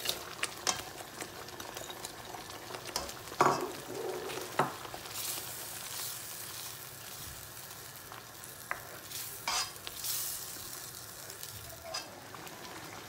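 Steel ladle stirring green peas into a tomato-cream gravy in a kadai, scraping and clicking against the pan every few seconds, over a steady sizzle of the gravy heating toward the boil.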